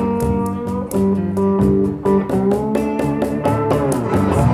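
Slow blues played live on electric guitar, picked notes and chords between sung lines, with a cajon slapped by hand keeping a steady beat.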